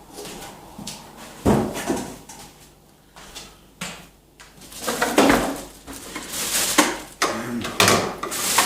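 Unboxing packaging being handled: irregular rustling and knocking, with the loudest bursts about a second and a half in and again over the last few seconds.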